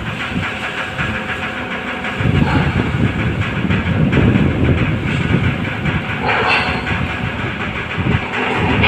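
Ferry machinery rumbling heavily while the ship berths, in uneven surges with a rattling edge and a brief brighter burst about six and a half seconds in.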